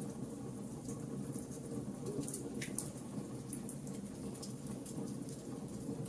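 Wood fire burning in a fireplace: a steady low rush of flames with frequent small, irregular crackles and one louder snap a little under halfway through.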